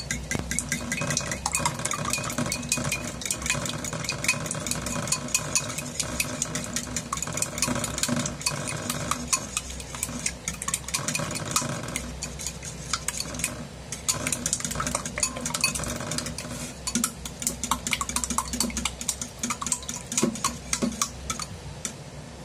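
Wire balloon whisk beating raw eggs in a ceramic bowl: a rapid, steady clicking of the metal tines against the sides of the bowl.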